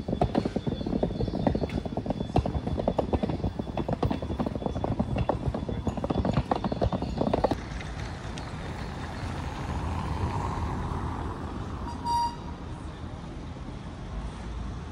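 Rolling suitcase wheels rattling fast and unevenly over cobblestones, cutting off abruptly about halfway through. Then steady outdoor city background with one short, high beep late on.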